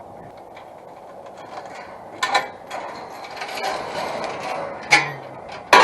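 Rattling and clattering with three sharp knocks, about two, five and nearly six seconds in.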